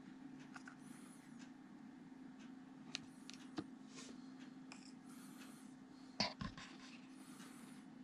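Faint handling of thin plastic containers: small clicks and rustles as a lidded plastic cup is opened and emptied into a plastic tub, with one louder knock about six seconds in, over a steady low hum.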